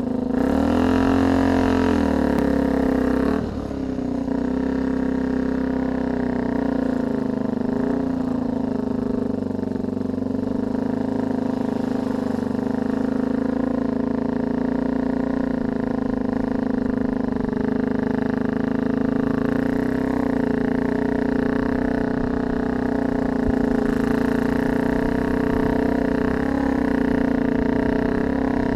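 A motor vehicle's engine running steadily. Its pitch wavers over the first few seconds, then drops briefly about three and a half seconds in before settling into a constant drone.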